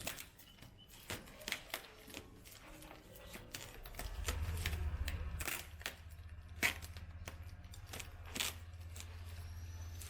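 Packaging being handled and unwrapped: scattered rustling and sharp clicks. A low steady hum comes in about four seconds in.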